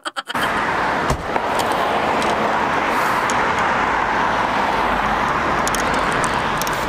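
Steady rushing noise with no words, with a single knock about a second in. It opens with the tail of a fast rattling sound effect.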